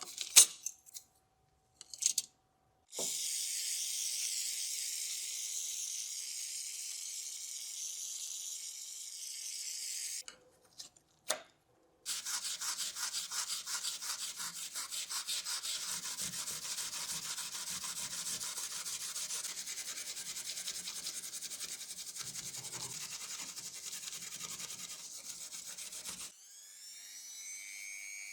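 Hand work on a surface with an abrasive: a few short knocks, a steady hiss, then a long run of fast, even rubbing strokes like sanding or scrubbing.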